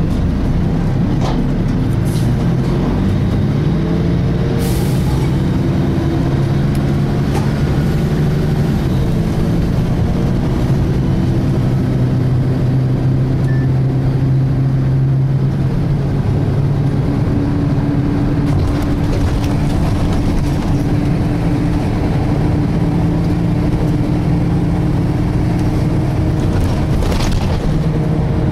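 Volvo B10BLE single-decker bus heard from inside while under way: engine and driveline running with a whining tone that climbs, holds, and later settles on a higher steady note, the strange differential sound of this bus. A few short rattles and a brief hiss break through.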